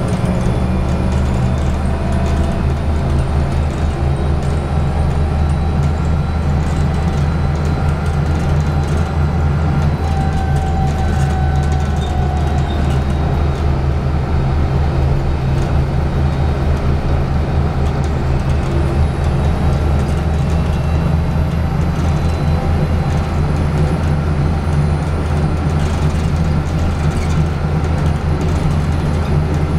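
Volvo B7TL Plaxton President double-decker bus under way, heard from inside on the upper deck: its Volvo straight-six diesel running at a steady low hum with road noise.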